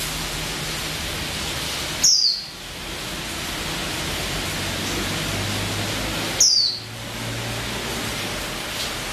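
Female white-eye (pleci) giving two short, high calls that fall in pitch, about four seconds apart, over a steady hiss.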